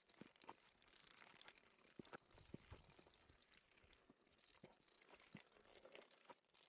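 Near silence, with faint scattered scuffs and clicks of a climber moving on granite.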